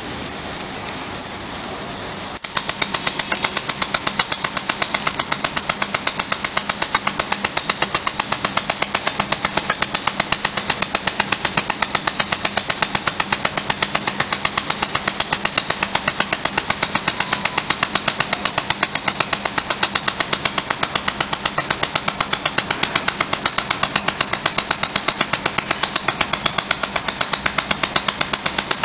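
Manual pulsed laser welding machine firing on steel plates: a fast, even train of sharp snaps, one per laser pulse, starting abruptly about two seconds in over the machine's steady hiss.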